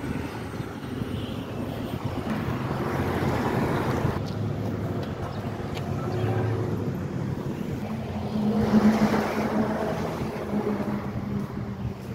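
Street traffic: motor vehicles driving past with a low engine drone and tyre noise, swelling as one goes by about nine seconds in.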